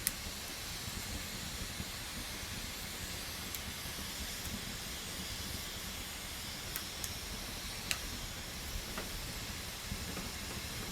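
Wood campfire burning with a steady hiss over a low rumble, broken by a few sharp crackling pops, the loudest right at the start and about eight seconds in.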